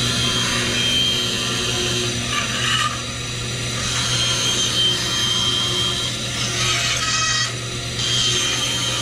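Bandsaw running with a steady motor hum while its blade makes several short relief cuts into a wooden board. The cutting noise swells and eases a few times as each cut goes in and backs out.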